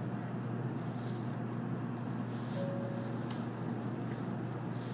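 Steady cabin noise inside an N700 series Shinkansen car at a station: a constant low hum under an even rush of noise, with a brief faint tone about halfway through.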